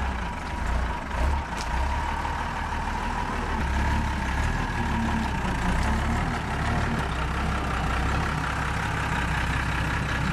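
A Unimog off-road truck's diesel engine running steadily under load as the truck crawls through deep mud.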